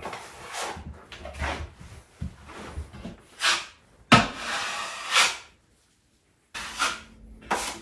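Drywall taping knife scraping joint compound around a metal mud pan and spreading it on drywall: a series of short scrapes, with a brief pause a little past the middle.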